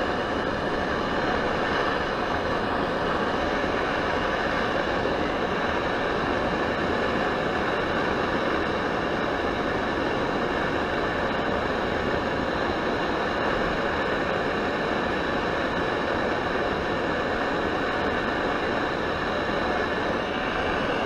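Primus Omnilite Ti gas stove burner running at a steady hiss under a pot of water that is coming up to the boil.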